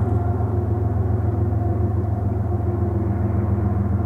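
Rear distributed-power GE ES44AC diesel locomotive of a freight train passing, its engine giving a steady, deep drone.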